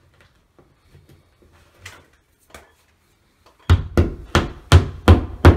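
A claw hammer tapping a plastic drywall anchor into the wall: six sharp blows in quick succession, about three a second, starting a little past halfway, after a few faint handling clicks.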